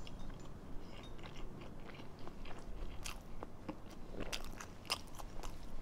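Close-miked chewing and biting of a thick, multi-patty Ramly burger: wet mouth clicks and smacks, sparse at first and coming more often from about halfway through.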